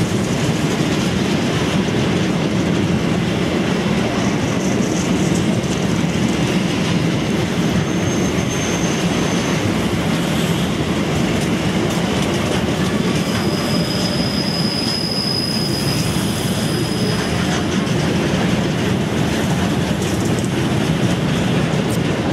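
Empty container flat wagons of a freight train rolling past with a steady low rumble. There is a short, thin, high wheel squeal about eight seconds in and a longer one about thirteen seconds in.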